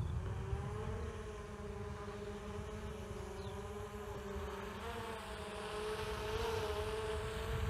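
DJI Mavic Air 2 quadcopter's propellers buzzing in flight, the pitch wavering slightly as it manoeuvres. It grows louder near the end as the drone comes closer.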